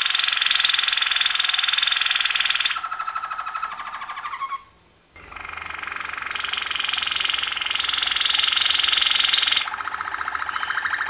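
Domestic canary singing: long runs of rapid trills, each held a few seconds before switching to a higher or lower tour. The song breaks off for half a second about four and a half seconds in, then resumes.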